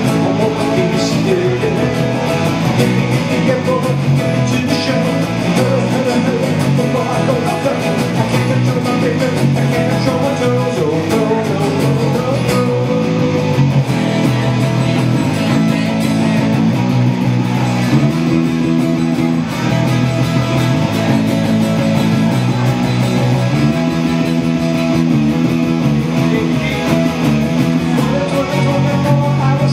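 Live song played on acoustic guitar and electric bass, with a man singing.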